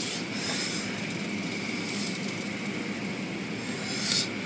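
Automatic car wash machinery running, heard from inside the car: a steady drone with a faint high whine, while the hanging cloth strips swish across the windshield. A brief louder swish of hiss comes about four seconds in.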